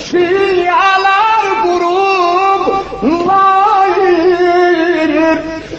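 A man singing an Azerbaijani mourning elegy for Imam Hussain in long, ornamented held notes. There are two sustained phrases with a short break about halfway, and the second slides up into its high note.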